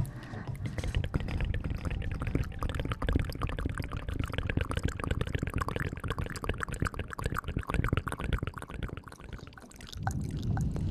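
Close-miked wet, crackly squishing of foamy lather being worked, as in hair-washing ASMR: a dense run of rapid small pops and crackles that gives way to a smoother, softer sound near the end.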